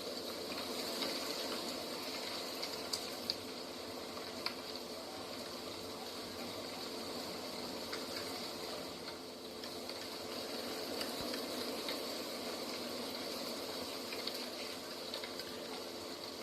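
Steady rushing outdoor nature ambience with an even hiss, broken by a few faint clicks in the first few seconds.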